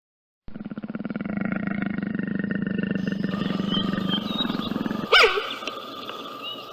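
A big cat growling: a long, rapidly pulsing rumble that stops about five seconds in, followed by a sharp call that wavers up and down in pitch.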